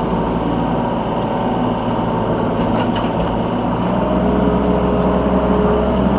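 Yanmar B3 Sigma 3-ton mini excavator's diesel engine running steadily, heard from the operator's seat, its note shifting about four seconds in.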